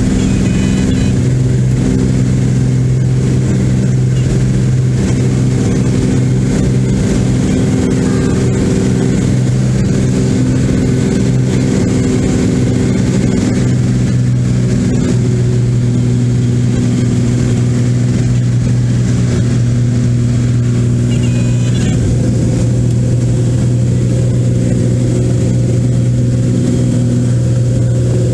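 Cessna 172's piston engine and propeller running at takeoff power during the takeoff roll and climb-out, heard from inside the cabin as a steady drone.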